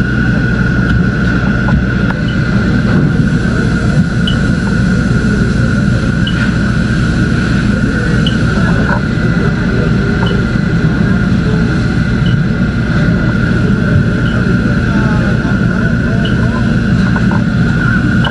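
A large engine running steadily, with a constant high whine over the low rumble and a faint short chirp about every two seconds.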